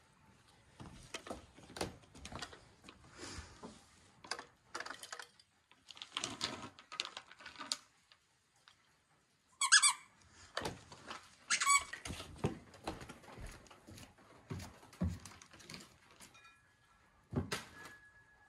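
Two short, wavering squeaks from a squeaky dog toy, about two seconds apart near the middle, used to make a dog perk up. Scattered light rustles and knocks come and go around them.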